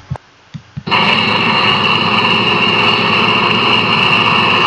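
A few quick clicks, then about a second in the steady running of combine harvesters threshing sesame shocks in the field starts abruptly: a constant, loud engine-and-machinery noise with several steady tones.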